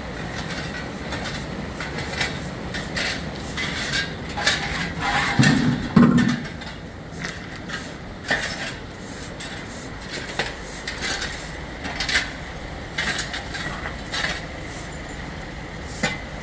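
Irregular clattering and knocking of hard objects being handled, with two heavier thuds about five and six seconds in.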